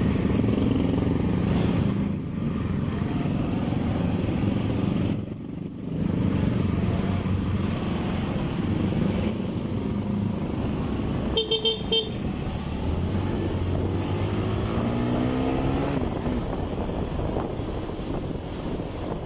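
Motorcycle engine running steadily while riding, with a short horn toot about eleven seconds in.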